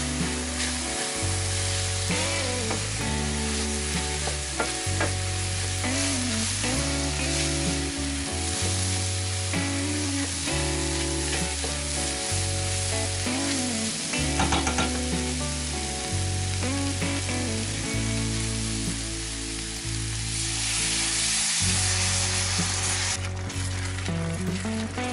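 Flour-coated button mushrooms sizzling in butter in a stainless-steel frying pan, stirred with a spoon, over background music. Near the end the hiss grows louder and brighter as the liquid goes in and the pan starts to bubble.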